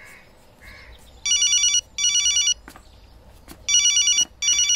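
A telephone ringing with a classic trilling electronic double ring, heard twice, about two and a half seconds apart.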